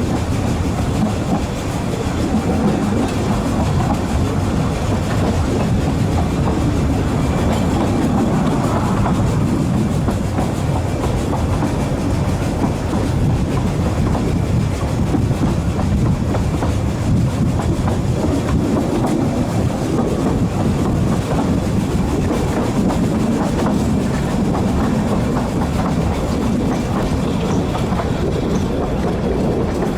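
Narrow-gauge passenger train running along the track: a steady, low-pitched running noise of carriage wheels on rail that holds level throughout.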